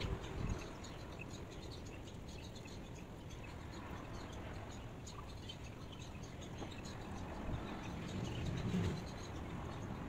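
Steady outdoor background noise with faint, short high chirps scattered through it, and brief low bumps about half a second in and again near the end.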